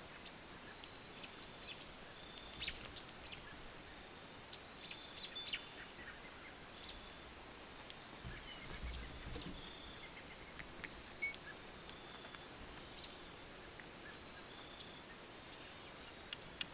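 Quiet woodland ambience: scattered short chirps and chips from small birds over a steady faint hiss, with a brief low rumble about eight seconds in.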